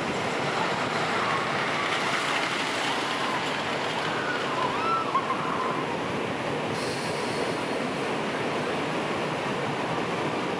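Steady rushing noise of a raft ride's conveyor lift hill as the round raft is carried up, with a few faint squeaks about halfway.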